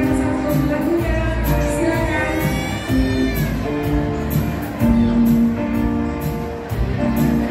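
Music with a singer's voice and a steady drum beat.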